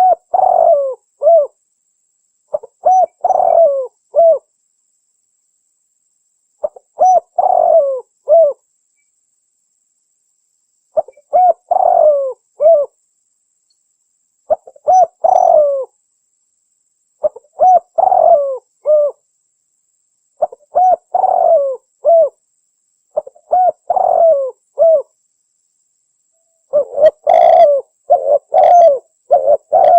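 Spotted dove cooing: a short phrase of a few coos repeated about every three seconds, with dead silence between phrases. Near the end the phrases come almost back to back.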